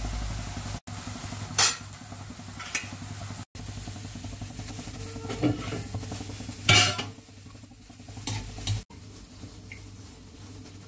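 Sliced onions sizzling as they deep-fry in oil in a metal wok, with a metal ladle stirring and clinking against the pan several times, the loudest clink about seven seconds in. The sound drops out briefly at a few edit cuts.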